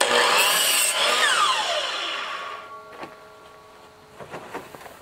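Electric compound miter saw cutting a 45-degree chamfer through the end of a rough-sawn trim board, loud and sudden as the blade goes through. The motor then winds down with a falling whine over about two seconds. A few light knocks follow as the board is moved.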